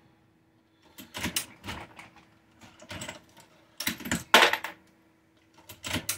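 Progressive reloading press cycled by hand while loading .38 Special rounds: a run of sharp metal clanks and clicks from the press's handle and moving parts, coming in bunches about a second apart, the loudest a little past four seconds in.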